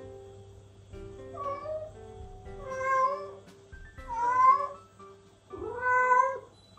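Bengal cat meowing four times, long plaintive calls about a second and a half apart, the third the loudest: a cat calling for its owner who has gone out of sight. Background music plays underneath.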